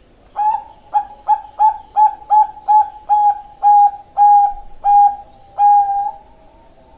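Zebra dove of the Bangkok song strain (perkutut) singing: a run of about a dozen coos at one pitch, short and quick at first, then longer and more spaced out.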